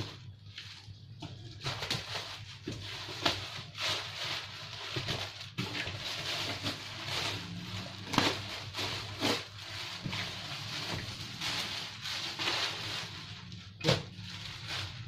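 Black plastic shipping bag rustling and crinkling as it is pulled and peeled off a cardboard printer box, with a few sharper crackles.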